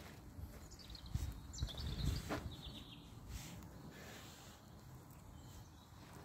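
Quiet farm-shed ambience with a few faint bird chirps in the first couple of seconds, and some low thumps of footsteps around the machine.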